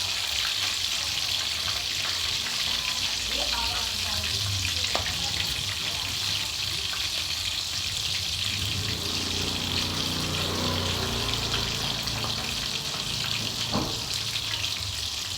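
A pan of gravy sizzling steadily while fried chicken pieces are stirred into it, with a few knocks of a utensil against the pan.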